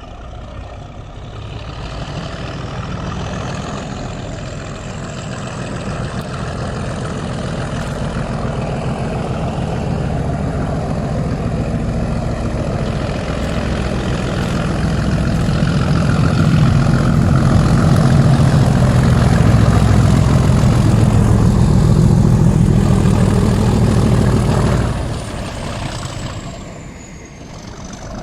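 Class 37 diesel-electric locomotive's English Electric V12 engine working under power as it pulls away with a train in tow, making some noise. The sound builds steadily to its loudest past the middle and drops sharply about 25 seconds in, with a thin high whine above it that rises early and falls near the end.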